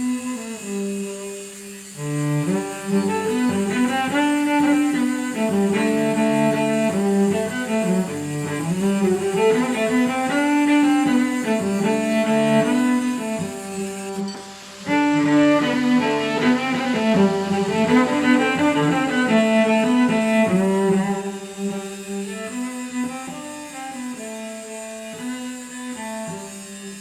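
Instrumental background music carrying a melody. It swells about two seconds in, drops out briefly about halfway through, and grows softer over the last few seconds.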